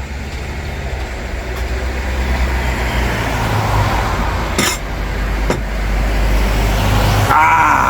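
Steady low rumbling background noise, like passing road traffic, with two sharp clicks around the middle and a brief voice sound near the end.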